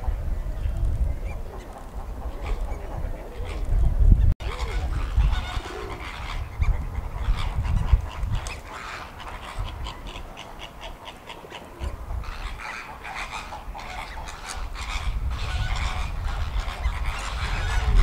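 A flock of flamingos calling, a busy chatter of goose-like honks, over wind rumbling on the microphone.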